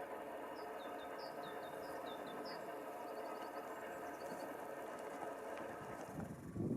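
A steady mechanical hum with small birds giving short, quick chirps over it in the first half; wind begins buffeting the microphone near the end.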